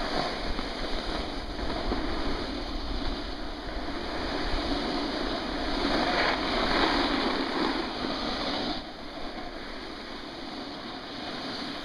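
Wind rushing and buffeting across the camera microphone in gusts, easing off about nine seconds in.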